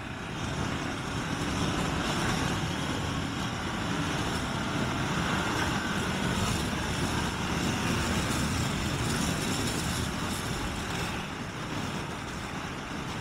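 Motorcycle riding at speed, heard from a helmet camera: steady wind rush over the microphone with the engine and road noise beneath. It builds over the first couple of seconds as the bike picks up speed.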